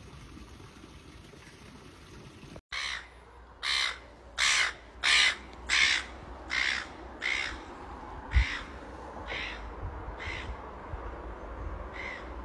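A crow cawing about ten times in a steady series, starting about three seconds in. The caws are loudest early on and grow fainter toward the end.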